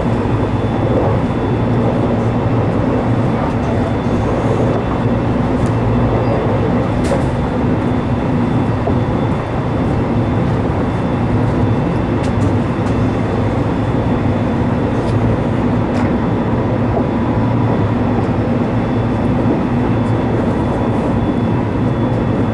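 Steady running noise heard inside a limited express electric train at speed: a continuous low rumble of wheels on rail with faint steady hums and a few faint clicks.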